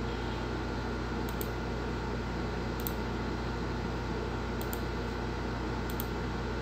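Steady low electrical hum and hiss of the recording setup, with about four faint computer mouse clicks spread through it.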